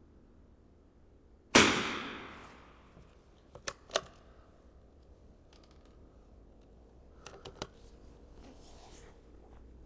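.22 LR rifle firing a single shot about a second and a half in, with a long echoing tail. About two seconds later come two sharp metallic clicks and clinks as the action is worked and a spent brass casing drops, then a few lighter clicks near the eight-second mark.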